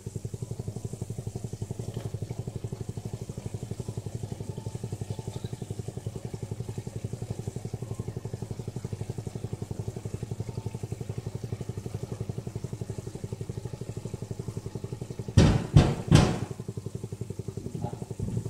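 A steady, finely pulsing motor hum under faint sizzling of chicken and capsicum frying in a pan. About fifteen seconds in comes a quick run of loud clanks of metal cookware.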